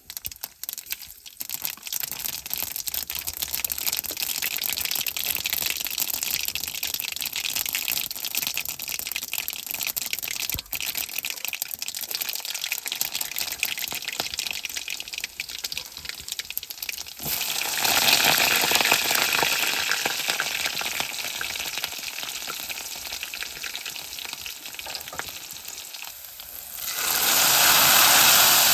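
Oil sizzling and crackling in a wok. It suddenly grows louder about two-thirds of the way through, then fades a little. It surges again near the end as chopped taro leaves go into the hot oil.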